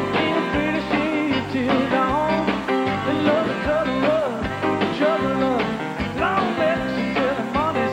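Live country band playing an up-tempo song, with a steady, repeating bass beat under bending guitar and vocal lines.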